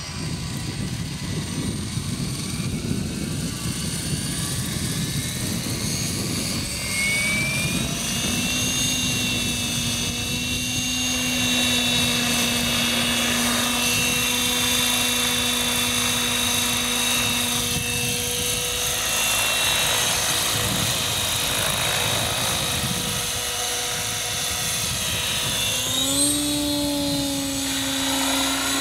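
Blade 700X electric RC helicopter's motor and main rotor spooling up: a whine that climbs in pitch over the first several seconds, then holds steady as it hovers. Near the end the whine steps up in pitch again.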